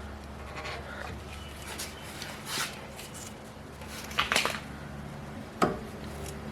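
Screwdriver levering against a front brake caliper to push the piston back: a few short scrapes and clicks, the sharpest a little over five and a half seconds in, over a low steady hum.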